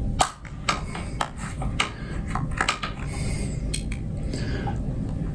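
Sharp, irregular metallic clicks and clinks, about a dozen, with a couple of short scrapes, as a hand tool works on a worn rubber foot peg cover to cut it off the metal peg.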